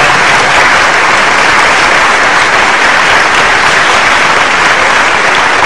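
Audience applauding: a dense, steady clapping that follows the end of a song.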